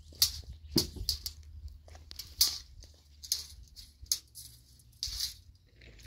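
Cooking things being handled at an outdoor fire: a scatter of short, sharp clatters, rattles and scrapes at irregular intervals, over a low steady rumble.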